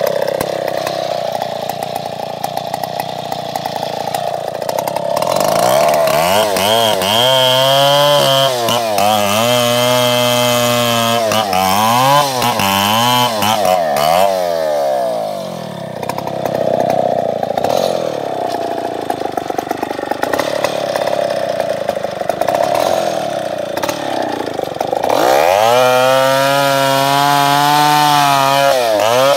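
Chainsaw cutting into a tree. It runs at a lower speed, revs up to a high whine about six seconds in and holds there with small dips in pitch, drops back to the lower speed halfway through, then revs up high again near the end.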